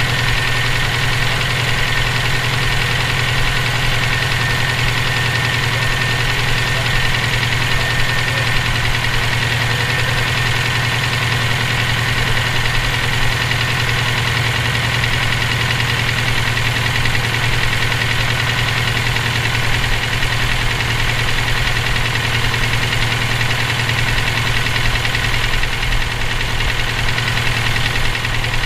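Subaru EJ257 2.5-litre turbocharged flat-four running steadily at an even speed with a constant knock in it. The owner calls it a nasty sound and asks whether it is rod knock, a spun bearing, or valve lash that needs adjusting.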